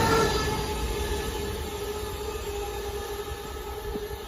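Class 450 Desiro electric multiple unit moving away after passing. Its steady whining tones and rail rumble fade steadily.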